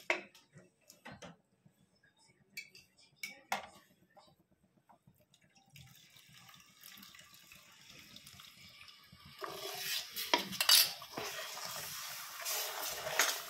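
A few light clicks of a spoon against a ceramic bowl, then saffron milk poured into the hot pan of ghee-roasted moong dal paste sizzles, the hiss growing louder about two thirds of the way through as a wooden spatula stirs it in.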